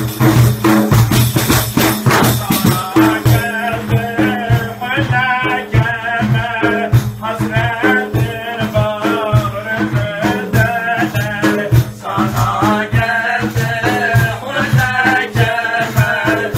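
Several large frame drums (def) beaten together in a steady rhythm, with a man's voice singing a wavering devotional melody over them from about three seconds in.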